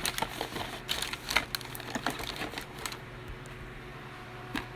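Quick light clicks and crinkles of plastic packaging being handled for about three seconds, then quieter with one more click near the end, over a steady low hum.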